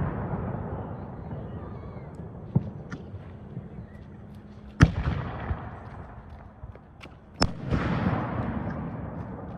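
Aerial fireworks shells bursting. A smaller bang comes about two and a half seconds in, then two loud bangs at about five and seven and a half seconds, each trailing off in a long echo.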